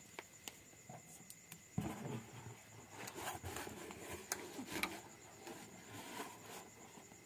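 Faint rustles and squeaks of a rubber balloon being handled and rubbed by hand, with scattered soft clicks, over a faint steady high tone.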